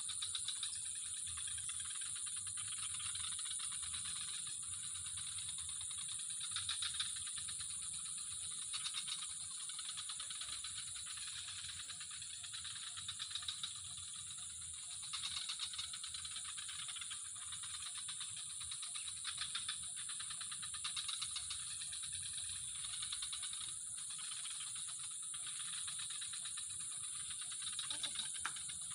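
A steady, high-pitched chorus of insects trilling, with rapid rattling pulses that swell a little now and then.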